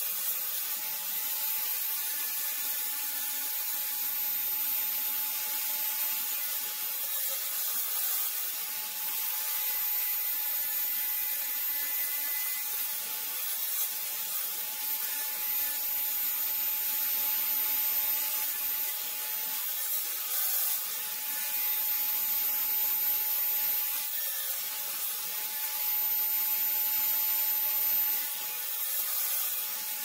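Table saw fitted with a dado blade running steadily with a constant whine, cutting dados in an MDF panel pushed through on a crosscut sled; it gets somewhat louder in a few stretches as the blade works through the board.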